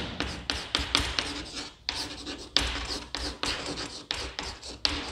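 Chalk writing on a chalkboard: a run of short scratchy strokes as a name is written out.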